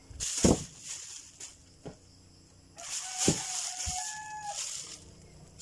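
Rustling and crinkling as bunches of rambutan and a plastic bag are handled, in two spells with a few soft thumps.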